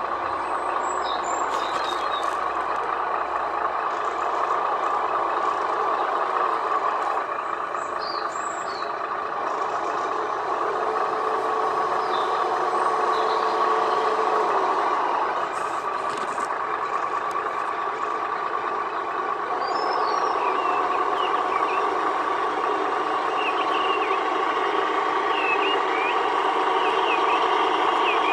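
Tamiya RC truck's onboard sound module playing a steady simulated diesel truck engine sound through its small speaker.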